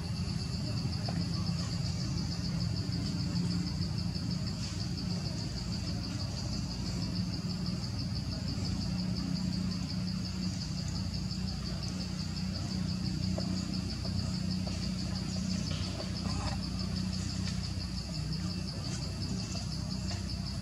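Insects trilling in the forest canopy: a steady, high, rapidly pulsing buzz that does not let up, over a low steady rumble.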